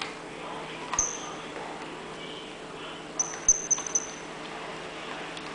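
Plastic Rubik's cube being turned by hand: a click of a layer turning about a second in, then a quick run of about four short, high squeaks in the middle, over a steady low hum.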